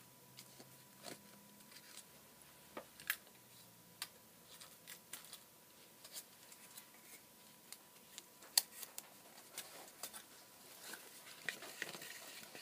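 Quiet, scattered clicks, taps and rustles of cardboard pieces and sticky tape being handled, with tape pulled from a desk tape dispenser; the sharpest click comes a little past halfway.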